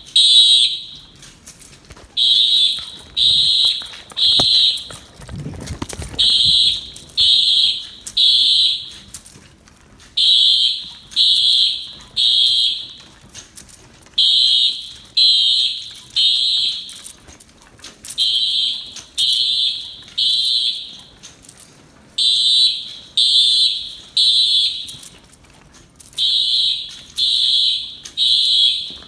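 Fire alarm horns on a Simplex fire alarm system sounding the temporal-3 evacuation signal: three high-pitched blasts of about half a second each, then a pause, with the cycle repeating about every four seconds.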